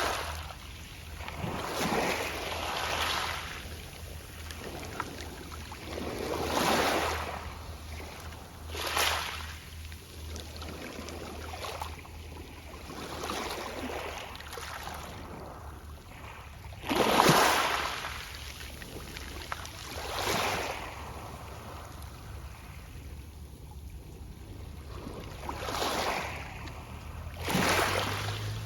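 Small sea waves washing onto a pebble beach, each surge followed by the soft rustle of pebbles, coming in every few seconds with the largest about halfway through.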